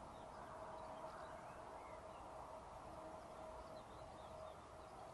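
Faint, steady hum with a thin whining tone from a distant DB class 294 diesel-hydraulic locomotive approaching slowly with a freight train, with small birds chirping faintly over it.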